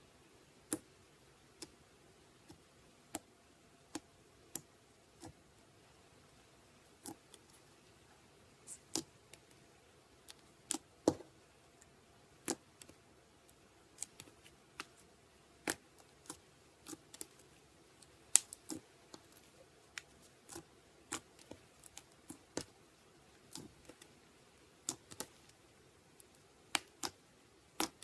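Slime being worked by hand, giving sharp, irregular clicks and pops about once or twice a second as air pockets in it burst.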